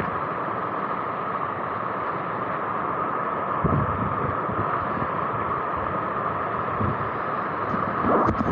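Steady rush of running water from a moorland burn, with wind buffeting the microphone in uneven low gusts. A short knock near the end.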